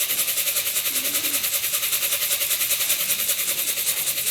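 A steady, fast-pulsing engine-like drone with a constant tone through it, and a pigeon cooing softly about a second in.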